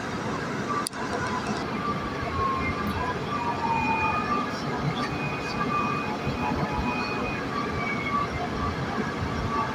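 A siren wailing faintly in the distance, slowly rising and falling, over a steady background of road noise.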